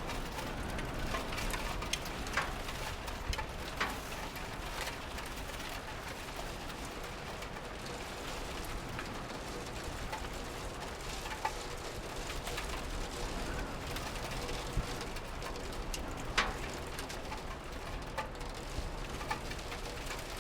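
Steady rain, with single drops ticking sharply now and then, the loudest about two-thirds of the way through.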